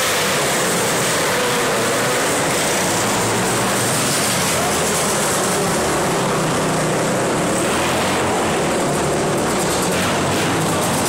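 A pack of outlaw racing karts running flat out on a dirt oval: several small engines at high revs blend into a steady, dense engine noise, their pitch wavering up and down as they pass.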